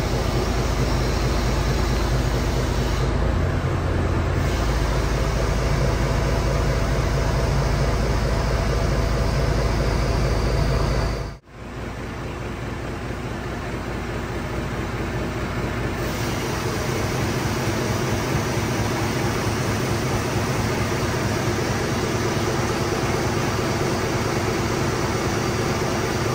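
Foden recovery truck's diesel engine running steadily, driving its crane as it lifts a tank engine pack. The sound drops out for a moment about eleven seconds in and returns with less low rumble.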